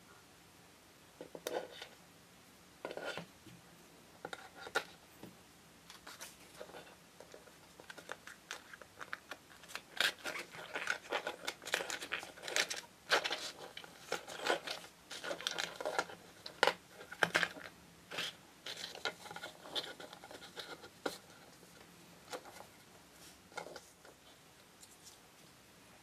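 Hand-handling noises at a craft bench: irregular small clicks, scrapes and crinkles as a grass-flocked sheet is pressed and fitted onto a plastic display base. A few scattered taps at first, a dense flurry in the middle, then thinning out again.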